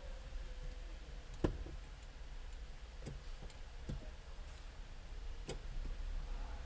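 Irregular sharp clicks and light knocks of tools and metal parts during reassembly of a car's steering column. The loudest is a single knock about a second and a half in, over a steady low hum.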